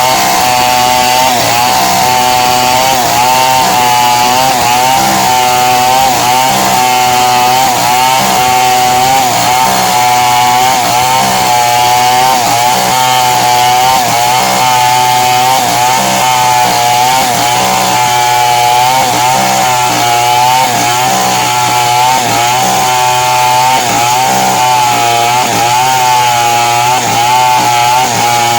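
Two-stroke chainsaw running at high revs while cutting through wood, its pitch sagging and recovering about once a second as the chain bites under load.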